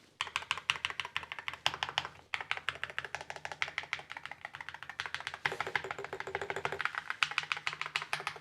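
Keys of a Keychron Q16 HE 8K, with ceramic keycaps over magnetic Lime switches, pressed in a fast run of clacks, about ten a second. The run pauses briefly twice.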